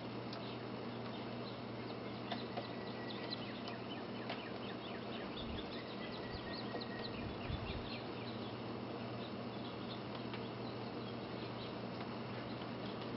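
Snow falling: a steady soft hiss with many faint ticks of flakes landing, busiest in the first half, and two low bumps about halfway through.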